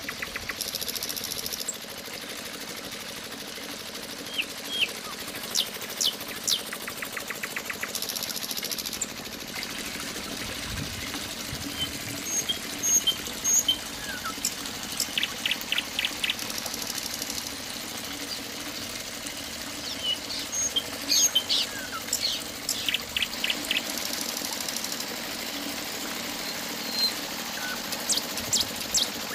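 A small motor, the miniature water-pump rig's engine, running steadily with a low hum, while birds chirp and trill over it again and again.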